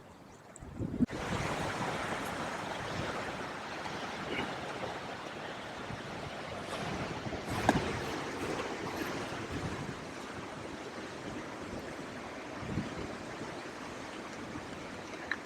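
Strong wind rushing across the microphone: an even noise that starts abruptly about a second in and holds steady, with one sharp knock midway.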